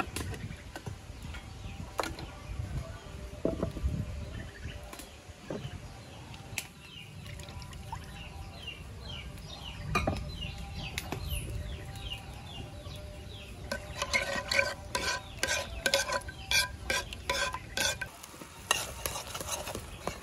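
A wooden paddle stirring and scraping in a cooking pot over a wood-fired clay stove, with scattered knocks. A quick run of sharp, ringing clatters of utensil against pot comes over the last few seconds.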